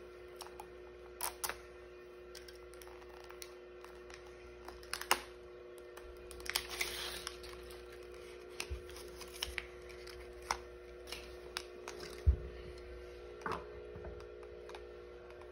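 Scattered light clicks and rustles of a Mighty Beanz blind pack and its plastic beans being handled and opened, with a short rustle about seven seconds in. A steady low hum runs underneath.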